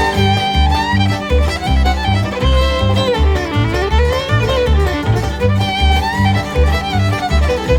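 Bluegrass instrumental music: a fiddle takes the lead with a quick melody that slides between notes, over a steady bass and guitar rhythm.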